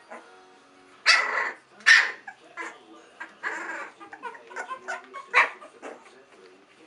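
Three-week-old Olde English Bulldogge puppies yipping and squealing in a string of short, high cries. The loudest come about one and two seconds in, with more yips around the middle and near the end.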